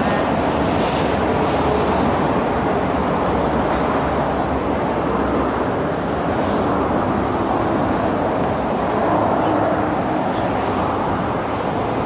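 Steady road traffic noise from a multi-lane highway, cars passing and their tyres and engines blending into one even rush.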